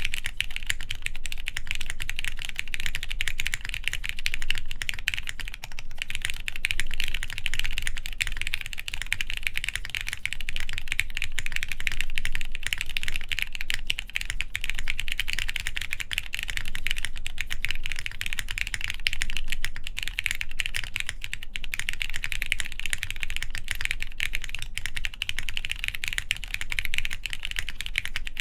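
Continuous, steady typing on a plateless prototype mechanical keyboard fitted with lubed Cherry MX Black linear switches and PBT keycaps: a dense run of key strikes and keycap clacks with no pauses.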